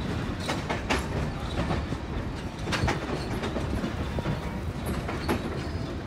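Passenger train rolling along the track, heard from aboard: a steady low rumble with a few sharp clicks and knocks from the wheels and cars.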